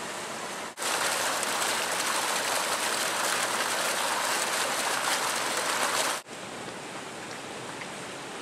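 Bubbling fountain jet splashing into a stone water channel: a steady rush of water that starts abruptly about a second in and cuts off sharply about six seconds in, with quieter steady outdoor background on either side.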